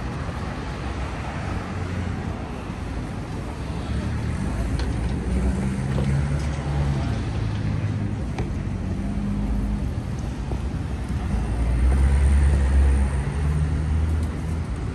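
City street traffic: vehicle engines running close by, with a low steady hum, growing louder a little before the end as a vehicle passes.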